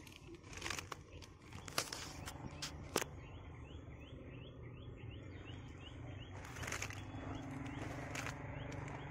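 Outdoor field ambience: scattered rustles and sharp clicks over a low steady hum, with a faint run of quick repeated chirps a few seconds in.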